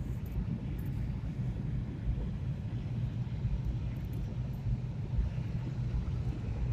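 Steady low rumble of engine and tyre noise from a moving car, heard from inside the cabin.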